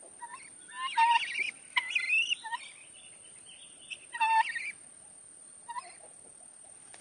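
Short, squeaky animal calls in several bouts, the loudest about a second in and around four seconds, with gaps of quiet between them.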